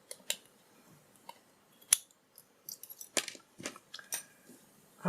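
A padlock and thin metal shims being handled: a scattered series of small sharp metallic clicks and ticks, the sharpest about two seconds in, with a denser run of clicks later on.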